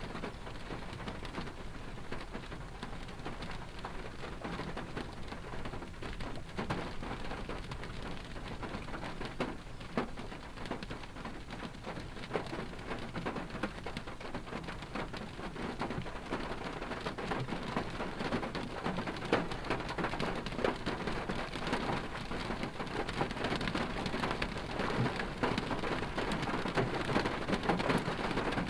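Rain falling on a car's body, heard from inside the cabin: a dense spray of irregular drop hits over a low rumble, growing louder over the second half.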